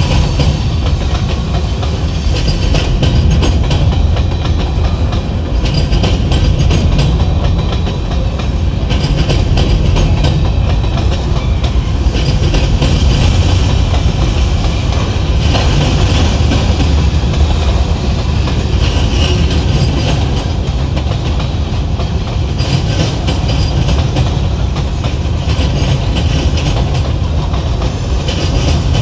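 A train rolling past, its wheels clicking and clacking over rail joints over a steady, loud rumble.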